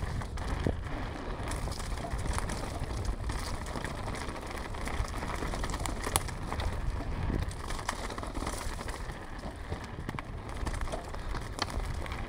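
Mountain bike descending on a rough surface: steady rolling noise with a low rumble and many small rattling clicks from the bike, one sharper click about six seconds in.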